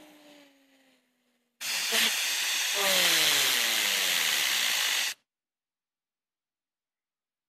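Compressed air from an air-compressor blow nozzle hissing against a spinning fidget spinner, with a whine that slides down in pitch. A faint falling whine fades in the first second, then a second blast of air lasts about three and a half seconds and cuts off suddenly.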